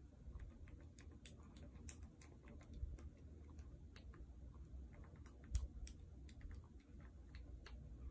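Faint, irregular clicks of calculator keys being pressed while a result is worked out, over a low steady hum.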